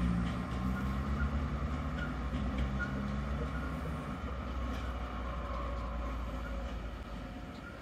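Distant diesel-hydraulic DB Gravita locomotive hauling a freight train past: a low engine drone over the rumble of the wagons. The engine note fades out about halfway through, and the train's rumble slowly dies away as it pulls off.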